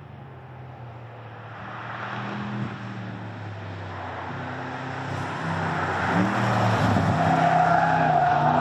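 Porsche Panamera Turbo S's twin-turbo 4.0-litre V8 driven on a track, getting louder as the car approaches and passes. The engine note dips and rises with the throttle in the corners, over the noise of the tyres on the asphalt.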